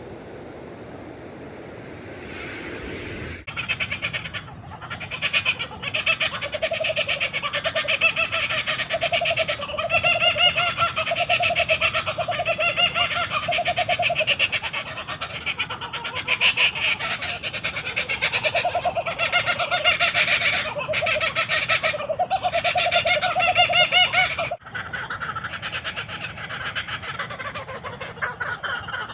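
Laughing kookaburra calling its rolling laugh: a long run of rapid, repeated hoots that swell into loud cackling. It starts a few seconds in and cuts off suddenly near the end, leaving fainter calls behind.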